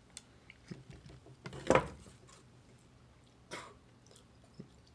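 A man coughing and clearing his throat in reaction to a mouthful of bad-tasting celery. One loud cough comes a little under two seconds in and a weaker one comes later.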